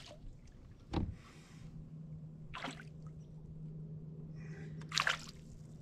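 Small water splashes and a knock around a canoe while a fishing lure is reeled in near the boat: a dull knock about a second in, a short splash midway and a sharper, louder splash near the end. A faint steady hum sits underneath from early in.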